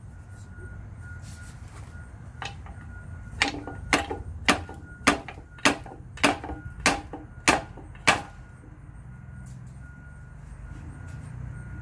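About nine sharp metallic knocks, roughly two a second, from a pry bar worked in quick jerks against the outside of a GM 8.25 differential case. They come from about three to eight seconds in, as he tries to break apart the case halves, which are held by a stuck dowel.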